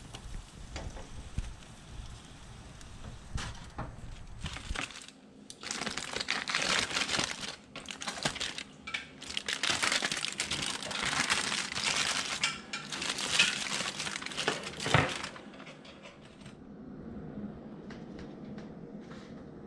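Aluminium foil crinkling in repeated bursts as a foil packet is pulled open, stopping about fifteen seconds in. Before that, a low rumble with a few clicks.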